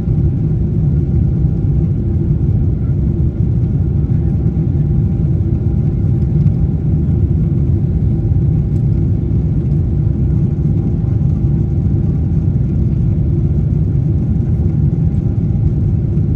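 Steady low rumble of jet engines and airflow inside the cabin of a Boeing 747-8i in flight, with a few faint steady tones above the rumble.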